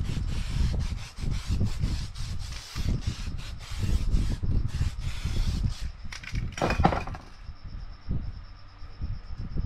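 Aerosol spray-paint can hissing in a run of short bursts, with fingers rubbing paint across the canvas; the spraying stops about six seconds in. A brief knock follows, then a faint steady high-pitched tone.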